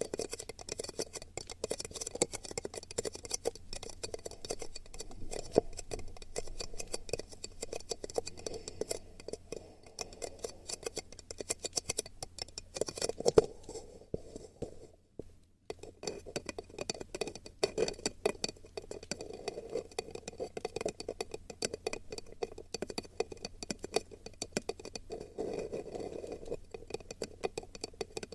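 Close-miked ASMR trigger sounds: dense, rapid crackling and scratching right at the microphone, with a short break about halfway through.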